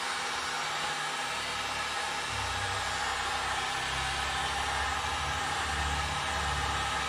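Heat gun blowing steadily, a hair-dryer-like hiss of hot air. A low rumble joins in about two seconds in.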